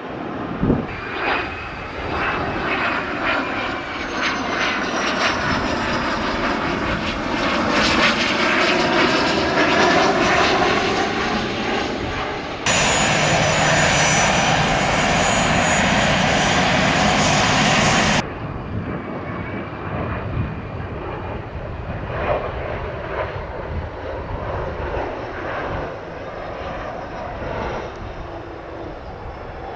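Turbofan engines of Cessna Citation business jets. First a whine with slowly gliding tones as a jet rolls along the runway. Then a sudden louder, steady rush of jet noise for about five seconds that cuts off abruptly, followed by a quieter engine whine from a jet on approach.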